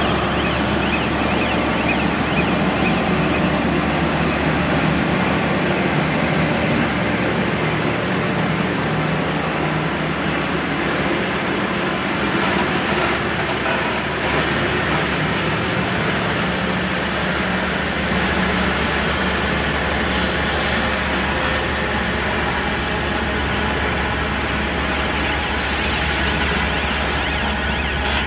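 Cometto box-girder transporter running steadily, a continuous heavy machine noise with a siren-like warning tone over it.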